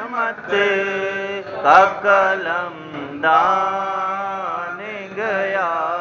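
A man's voice reciting an Urdu naat unaccompanied, sung in long held melodic phrases with short breaks for breath between them.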